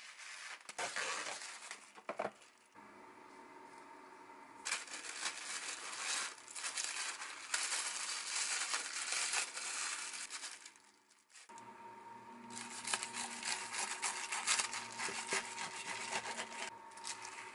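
Plastic cling film crinkling and rustling as it is pulled from its box and pressed tightly around a thick sandwich. Near the end, more crinkling as a knife cuts through the wrapped sandwich.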